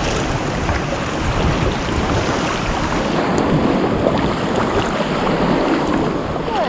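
Sea water sloshing and splashing around a kayak on a choppy sea, with wind buffeting the microphone.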